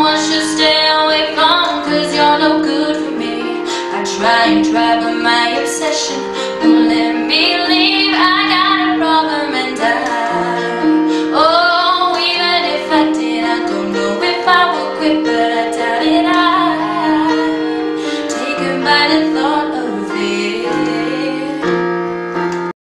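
A young woman singing a slow pop song into a microphone over sustained keyboard chords. The music cuts off suddenly near the end.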